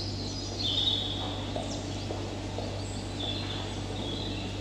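Recorded birdsong used as a background sound effect: high whistled chirps and short glides, over a steady low electrical hum.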